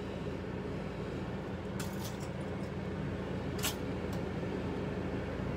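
A steady low hum throughout, with a few light clicks and knocks as bagel halves are put into a pop-up toaster, the sharpest a little past halfway.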